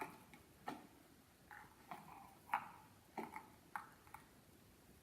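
Faint, irregular light clicks and taps, about eight in five seconds, from a plastic cup and its string being handled.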